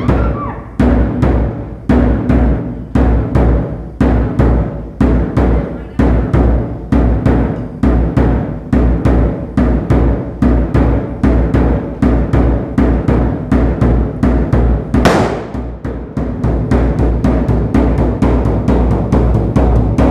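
Drums beaten in a repeating pattern: a deep, heavy stroke about once a second with lighter strokes between. There is a single cymbal-like crash about fifteen seconds in, and the beat grows denser after it.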